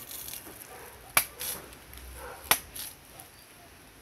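Machete chopping into a coconut held in the hand: two sharp, short chops about a second and a half apart, the blade biting into the husk to open it.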